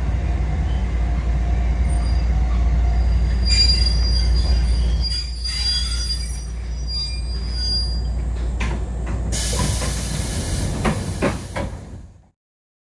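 Kotoden 1080/1100-series electric train slowing into a station, heard from the cab: a steady low running rumble with a thin, high wheel squeal about four seconds in. Near ten seconds, as the train stops, there is a loud hiss of air with a few clicks, and then the sound cuts off suddenly.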